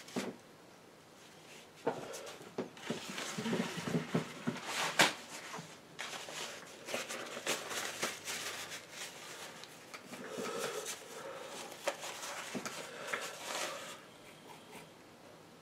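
Palette knife working oil paint: irregular soft scrapes and small clicks and taps against the painting surface and palette.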